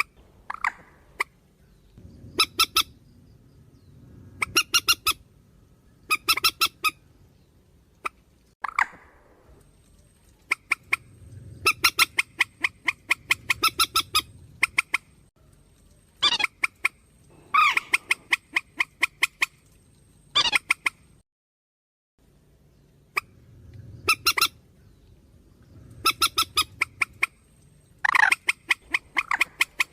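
Recorded calls of the waterbird that Vietnamese trappers call 'trích ré', played as a bird-trapping lure track. The calls come in repeated bursts of rapid, harsh clucking notes, broken by single swooping squeals. There is a brief gap of silence a little past two-thirds of the way through.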